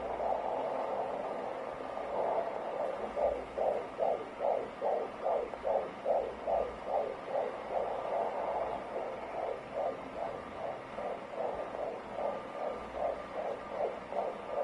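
Fetal heartbeat through a Doppler ultrasound: a fast, even pulsing swish of about two and a half beats a second, running more blurred together for the first couple of seconds before the beats come through clearly.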